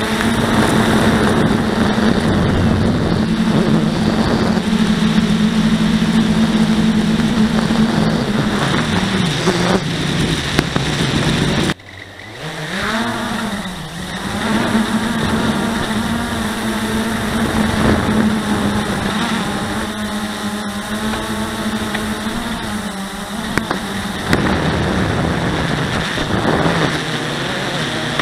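Blade 350QX quadcopter's motors and propellers buzzing steadily, heard from its onboard camera. About twelve seconds in the sound suddenly drops away, then comes back with its pitch sliding up and settling again.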